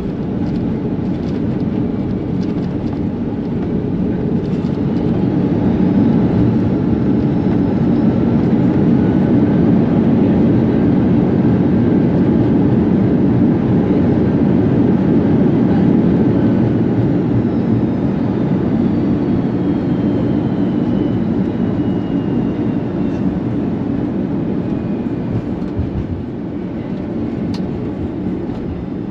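Airbus A330 cabin noise on the ground just after landing: a steady jet-engine and rolling roar that swells a few seconds in, holds, then slowly eases off, with faint whines falling in pitch in the second half.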